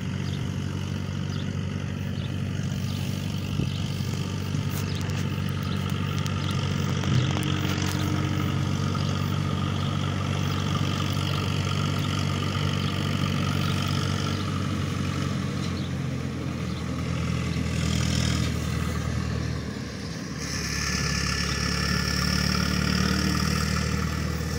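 Hanomag tractor's diesel engine running steadily under load as it pulls a hay mower through the field. The drone dips and shifts about twenty seconds in.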